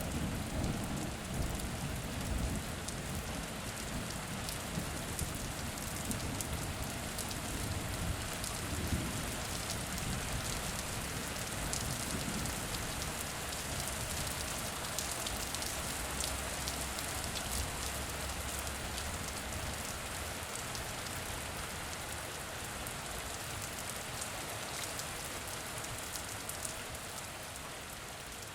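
Steady rain falling, with dense fine drop ticks. A low thunder rumble dies away in the first few seconds, and the rain eases slightly near the end.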